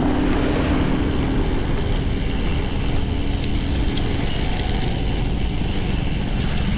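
Road noise while riding a mountain bike in city traffic: a steady low rumble of wind on the camera and passing vehicles. An engine hum fades over the first two seconds, and a thin high whine sounds for about two seconds near the end.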